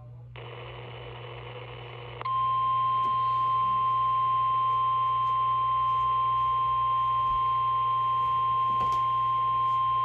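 A second or two of hiss from a NOAA Weather Radio broadcast, then the 1050 Hz Weather Radio warning alarm tone comes on and holds one loud, steady pitch, played through an EAS decoder's small speaker. The tone signals that a warning, here a severe thunderstorm warning, is about to be read.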